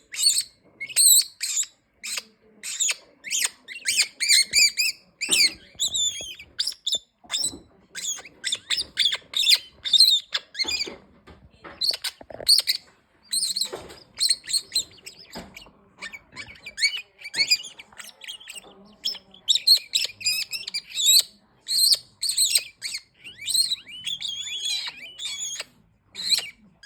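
Red-winged parrot calling: a rapid, continuous series of short, sharp, high-pitched squawks and chirps, some bending in pitch.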